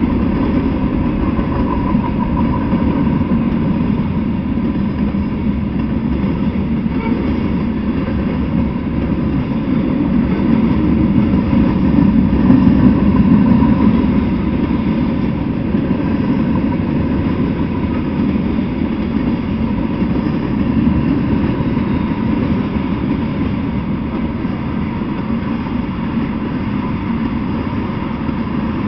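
Freight train of tank cars, covered hoppers and boxcars rolling past at steady speed: a continuous rumble of steel wheels on the rails, swelling slightly about halfway through.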